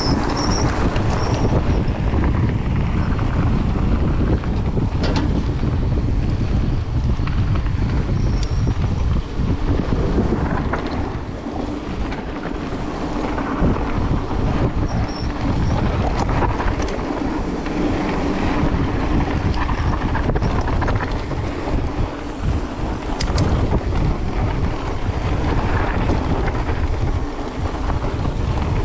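Wind buffeting a camera microphone on a moving rider: a loud, continuous rumble with no breaks.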